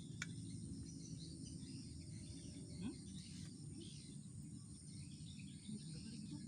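Faint forest ambience: a steady high insect drone with scattered short bird chirps over a constant low rumble.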